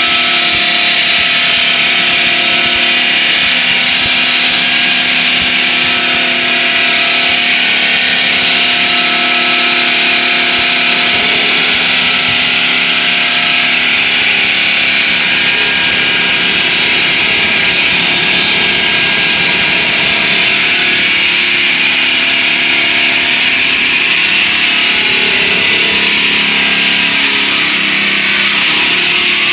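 Large circular saw blade of an automatic gantry cutting machine sawing steadily through a wet slab. It makes a constant loud, high grinding hiss with a few steady hums beneath it.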